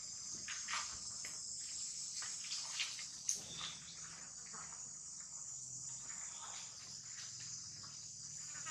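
Continuous high-pitched chorus of insects, with a few faint clicks and taps in the first few seconds.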